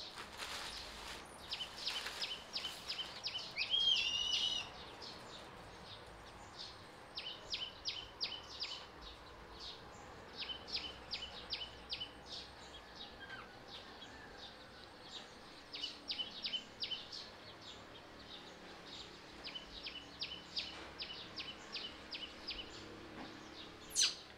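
Bird chirping in short, rapid runs of high notes that repeat again and again, with a louder wavering call about four seconds in. A single sharp click sounds near the end.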